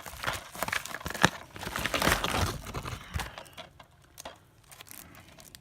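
Packaging crinkling and rustling, with light clicks and taps, as a DVD is unpacked and handled. It dies down to a few scattered ticks after about three seconds.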